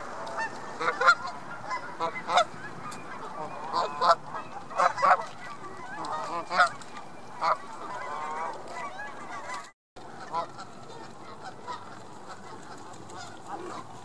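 A flock of Canada geese honking, many short, loud calls overlapping through the first ten seconds. After the sound drops out for a moment, fainter honks continue.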